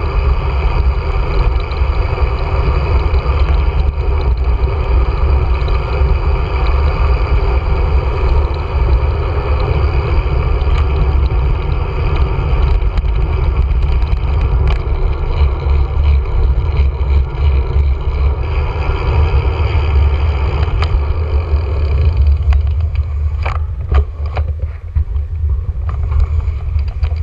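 Steady wind rush and tyre noise from a single-speed bike rolling downhill, buffeting a bike-mounted GoPro's microphone. Near the end the rush eases and a few sharp clicks sound.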